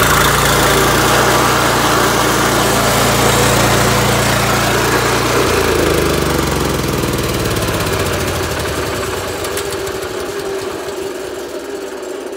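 A Toro SGR-13 stump grinder's Honda engine, about 13 horsepower, running loud just after being pull-started. Its note changes about five seconds in, then it slowly eases off.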